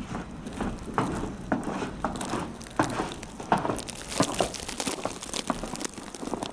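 Plastic bag over the camera crinkling and rustling against the microphone, with irregular sharp strokes about twice a second from footsteps in snow.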